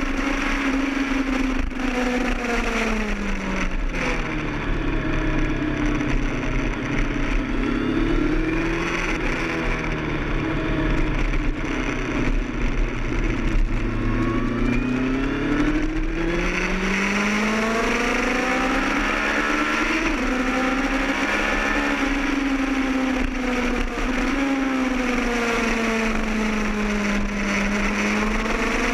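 Kawasaki ZX-10R's inline-four engine heard from on board at track pace. The revs climb and drop again several times as the bike accelerates and slows for corners, over a steady rush of wind.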